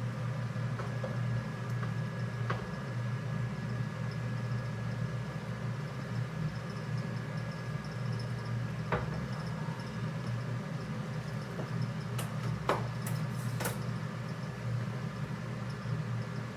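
A steady low mechanical hum, like a kitchen fan or appliance running, with a few light clicks and knocks: one a few seconds in, one around the middle, and a short cluster near the end.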